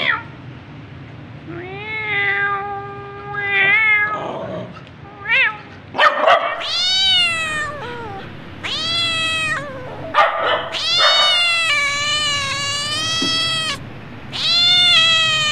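A cat yowling in a series of about six long, drawn-out meows, the longest about three seconds, some held at one pitch and others sliding up and then down, with short noisy bursts between some calls.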